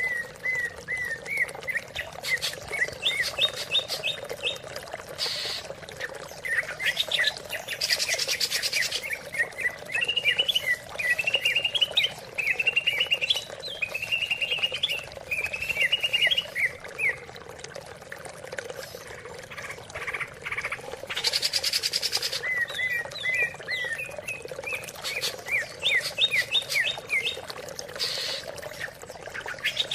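A cucak ijo (greater green leafbird) singing: rapid strings of short chirped and whistled notes, some phrases rising and sweeping. Several loud noisy bursts come between the phrases.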